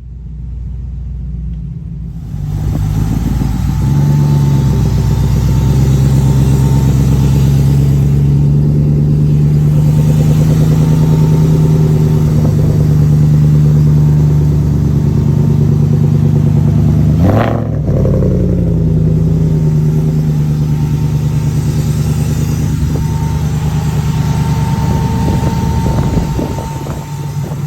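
Ford Coyote 5.0 V8 running at a fairly steady speed, with a short sharp rising-and-falling whoosh about two-thirds of the way through.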